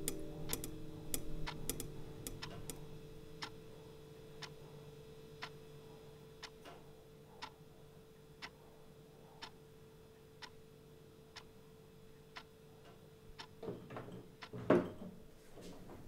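Wall clock ticking steadily, about once a second, over faint held music notes that fade out. Near the end come a few knocks, one much louder than the rest.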